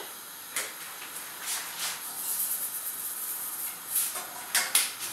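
Kitchen handling noises while seasoning and stirring a sauce: a series of short, scratchy scrapes and rustles, about six or seven over a few seconds, over a faint hiss.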